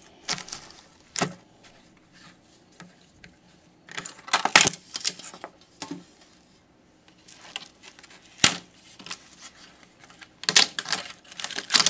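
Irregular clicks, scrapes and rattles of small metal and plastic parts and hand tools as an iMac's display assembly is opened and taken apart, with a sharp click a little past the middle.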